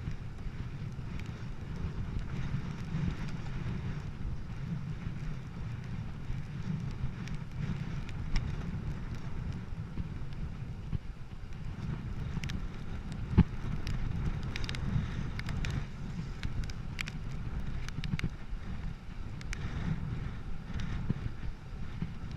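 Wind buffeting the microphone of a bicycle rider at speed, a steady low rumble with hiss above it. Scattered short clicks and knocks run through it, with one sharper knock around the middle.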